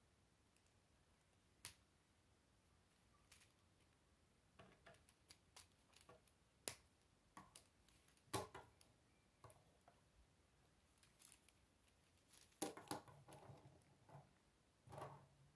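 Scattered sharp clicks and light knocks of K'nex plastic rods, connectors and wheels being handled and snapped together, with faint room tone between them. The clicks come irregularly, several more closely bunched a little after the middle.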